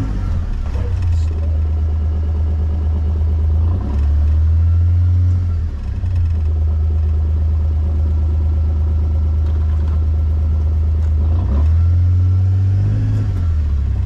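A motor vehicle's engine runs with a steady low drone, speeding up twice, about four seconds in and again near the end, as it is driven.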